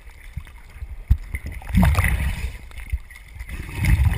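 Seawater sloshing and washing against a GoPro camera housing bobbing at the surface, with two louder surges of deep wash, about two seconds in and again near the end.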